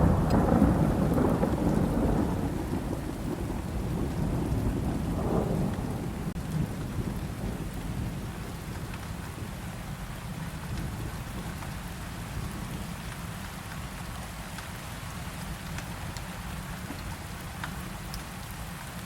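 Steady rain with a rumble of thunder that fades away over the first several seconds, swelling briefly about five seconds in, leaving only the rain.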